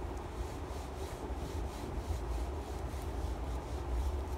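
Felt whiteboard duster rubbing back and forth over a whiteboard, wiping off marker writing in quick, even strokes of about three a second, over a steady low hum.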